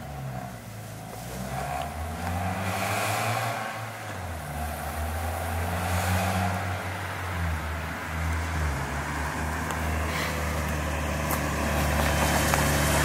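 Hyundai Tiburon with a freshly welded headers-back exhaust and Thrush Turbo muffler, driving toward the listener and accelerating. The engine note rises and falls several times as it pulls through the gears, and it grows louder as the car nears.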